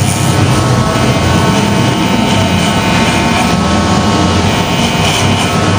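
Electric hair clipper running with a steady hum, used without a guard to cut hair over a comb.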